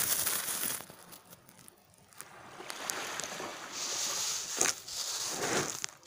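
Small waves washing up over a coral-gravel beach: a hiss with a crackle of shifting gravel that swells, fades after about a second, then builds again, with a few sharp clicks near the end.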